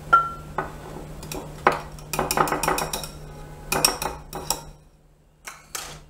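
A spoon clinking, knocking and scraping against glassware as thick, sticky halwa mixture is scooped out of a bowl into a glass dish. A sharp clink with a short ring comes at the start, then a busy run of knocks and scrapes, and two brief taps near the end.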